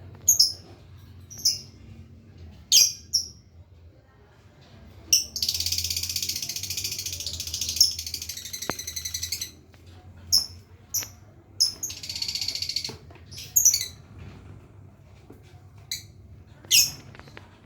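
Lovebird giving sharp high chirps and two long, rapid chattering trills in the 'ngekek' style, the first about four seconds long starting about five seconds in, a shorter one about twelve seconds in. The bird is still learning the ngekek trill.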